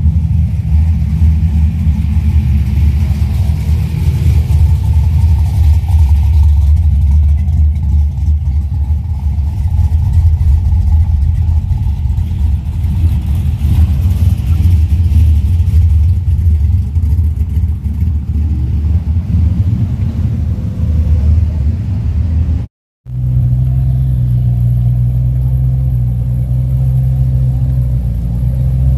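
Deep, lumpy rumble of drag cars' engines idling in the staging lanes. A brief dropout comes about three-quarters through, and after it a single engine idles with a steadier, slightly higher note.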